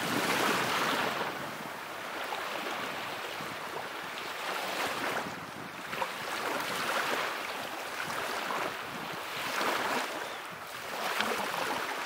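Small sea waves lapping and washing over shallow water and rocks at the shoreline, swelling and easing every second or two.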